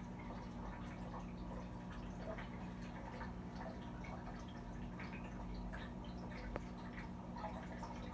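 Water dripping and trickling in small scattered ticks over a steady low hum.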